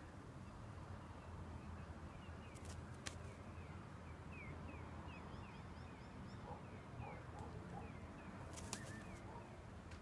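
Faint bird chirping: a run of short, falling chirps, a few a second, with a few sharp clicks about three seconds in and again near the end, over a steady low rumble.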